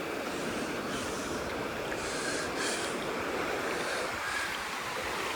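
Pacific Ocean surf washing onto the beach, a steady rushing noise, with some wind on the microphone.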